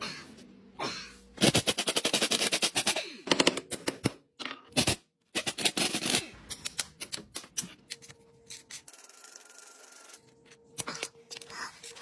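Fast runs of sharp clicks, about ten a second, then scattered single knocks and scrapes from hand-tool work on the car.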